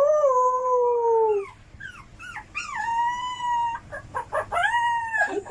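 Dog howling: a series of drawn-out howls, the first long and slowly falling in pitch, then shorter ones and a higher held howl. It is the kind of howl a dog gives when coaxed to copy a person howling.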